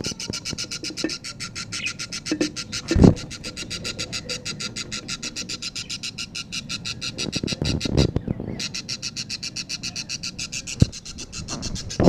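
Budgerigar chicks begging in the nest, a fast, even rasping chatter of about eight pulses a second that stops briefly about two-thirds of the way through. A few knocks, the loudest about a quarter of the way in, as the clay nest pot is handled.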